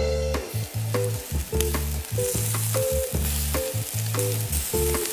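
Hot dogs sizzling on a kettle grill under intro music with a choppy bass line and sharp percussion hits.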